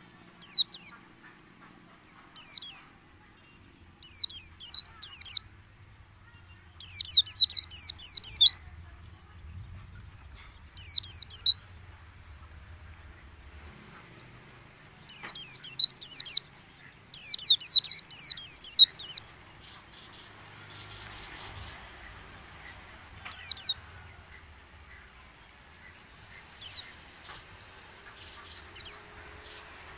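White-eye (pleci) singing in rapid, high twittering bursts of a second or two, with short gaps between them. Toward the end only a few fainter single calls are heard.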